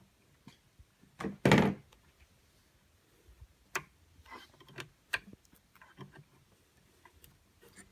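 Handling noise as a zip tie is worked off a 3D printer's extruder: a loud knock about a second and a half in, then scattered small clicks and ticks of tools and plastic.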